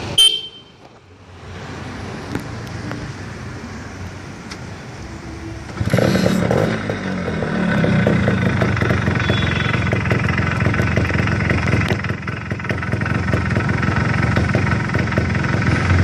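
Suzuki Shogun underbone motorcycle engine and exhaust running, getting clearly louder from about six seconds in and holding there.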